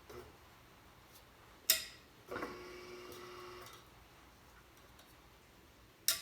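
Sheet steel and the bead roller being handled as the repair piece is set up: two sharp metallic clicks about four seconds apart, the first followed by a short ringing tone.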